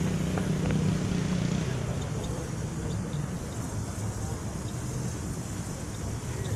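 23-90 Baker steam traction engine working under load on a belt-driven Baker fan: steady running noise of the engine and fan. A strong low steady tone fades out about a second and a half in, leaving a rougher running noise.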